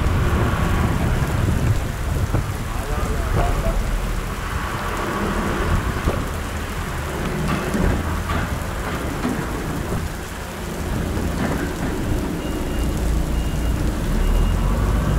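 Heavy rain pattering on the wet truck cab and an outside-mounted camera, over the low rumble of a DAF XF truck's diesel engine and tyres on the wet yard as it rolls slowly. A faint short high beep repeats about every second near the end.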